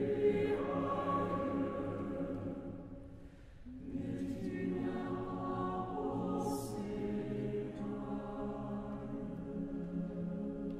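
Mixed choir singing slow, held chords in French. The sound thins out briefly about three seconds in, and then a new phrase begins and swells into a long sustained chord.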